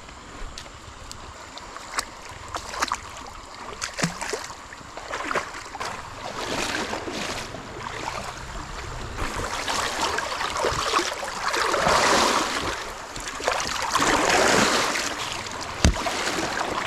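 Water rushing and splashing in uneven swells, with scattered knocks and clicks over the first few seconds.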